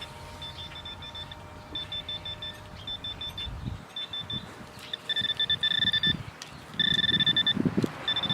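Metal detector beeping in quick high-pitched runs as it is swept over a buried metal target. The runs grow longer and louder about five seconds in, with a second, lower tone joining them.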